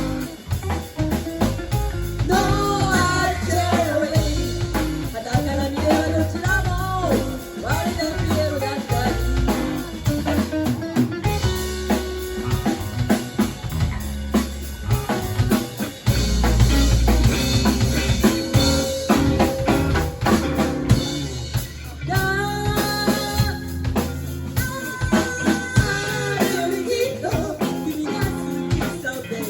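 A live rock band playing an instrumental passage: a drum kit beat under guitar and a bending melodic lead line.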